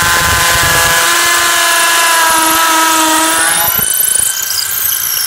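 Ryobi One+ 18-volt brushless hammer drill boring into concrete: a loud, steady motor whine over a dense hiss, sagging slightly in pitch, giving way to a harsher, higher hiss about four seconds in.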